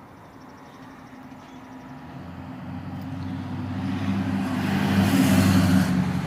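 Go-kart's small single-cylinder non-Hemi engine running steadily, growing louder to a peak about five seconds in and then easing off as the kart comes close and moves away.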